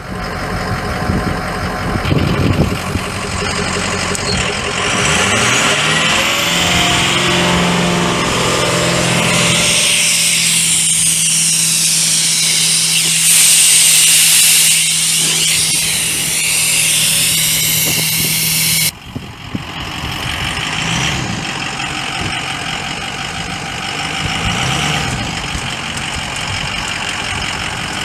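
6.0L V8 turbo diesel of a Ford F350 Super Duty running; its engine speed climbs in the first several seconds and then holds steady. A loud hiss of air runs from about ten seconds in and cuts off suddenly about two-thirds of the way through, after which the engine settles back to idle.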